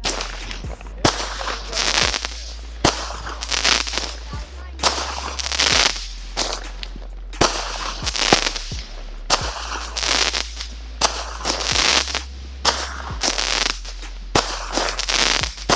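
Consumer firework cake going off: an irregular string of loud bangs with a crackling hiss after each, roughly one or two a second throughout.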